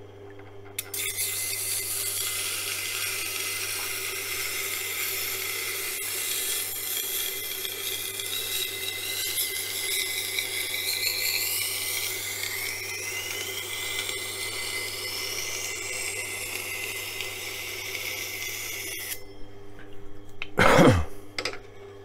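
Knife blade being ground on the 400-grit wheel of a wet sharpening grinder: a steady hissing scrape of steel on the wheel over the machine's low motor hum, with whining tones that shift and rise in pitch midway. The grinding starts about a second in and stops a few seconds before the end, and a brief loud knock follows near the end.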